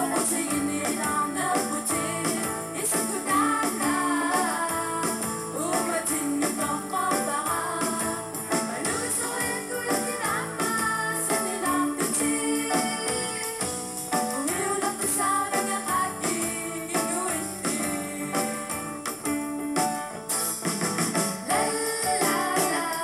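A live band playing a song with singing and a steady beat.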